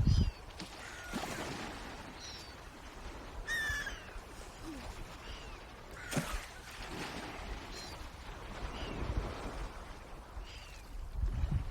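Short, high bird calls that fall in pitch, one every second or two, over a low wind rumble, with a couple of brief rushing swishes.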